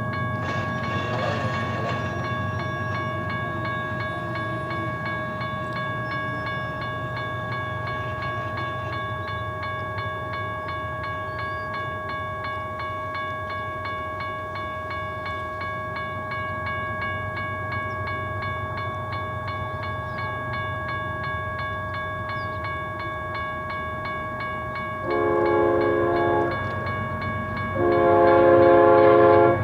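Grade-crossing warning bell ringing in a fast, even ding over the low rumble of an approaching diesel freight locomotive. Near the end the locomotive's air horn sounds two blasts, the second louder and longer.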